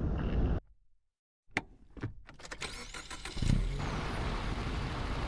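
Car driving along a dirt road: steady tyre and engine noise heard from low outside beside the front wheel. A brief silence about a second in, then a few clicks and a thump before the steady driving noise sets in.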